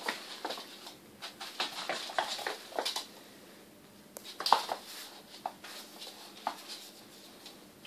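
Quick clicks, scrapes and knocks on a laminate floor from a badger cub's claws scrabbling and a broom head knocking about as the cub chases it. Busy for the first three seconds, one sharper knock about four and a half seconds in, then sparser taps.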